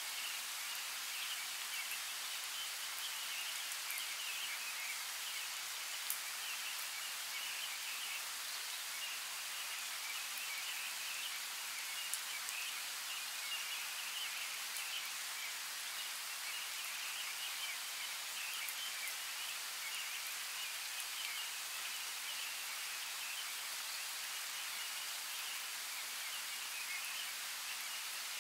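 Steady rain ambience: an even hiss of rainfall with a few scattered drop ticks.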